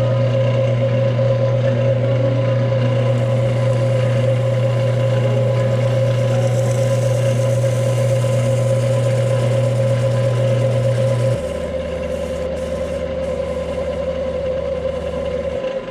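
JET wood lathe running steadily with a motor hum and whine while a micro-mesh pad dry-sands the spinning cherry bowl. About eleven seconds in, the sound gets quieter and its low hum drops lower.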